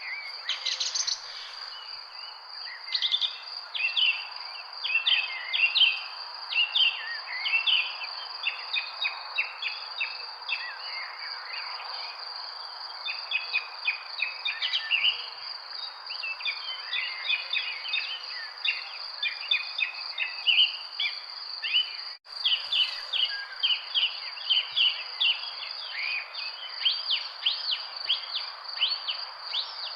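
Many birds chirping and singing in quick, overlapping calls over a steady high insect drone and a background hiss. The sound cuts out for a moment about 22 seconds in.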